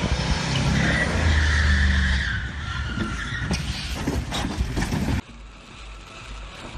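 A pickup truck's tyres skidding and squealing as it slides off the road, with its engine running hard underneath. Several knocks and thuds follow around three to five seconds in. A little past five seconds the sound cuts abruptly to a quieter low rumble of a car driving through heavy rain.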